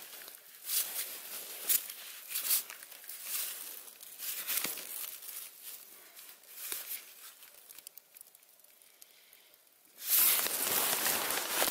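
Rustling and crinkling of hammock fabric and wrappers as someone shifts and handles things, in short scratchy strokes. About ten seconds in, a much louder, steady rushing hiss starts.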